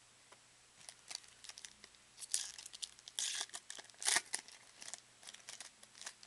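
Foil wrapper of a trading-card pack crinkling and tearing as it is ripped open by hand: a quick run of sharp, irregular crackles starting about a second in, loudest in the middle.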